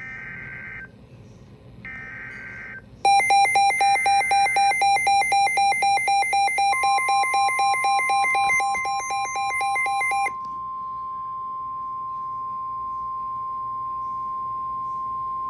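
Emergency Alert System weather-radio alert tones: short bursts of screechy two-pitch SAME data about a second apart, which mark the start of a new warning. Over them a loud, rapidly pulsing electronic alarm beep sounds for about seven seconds, and partway through the steady single-pitch weather-radio attention tone starts and holds to the end.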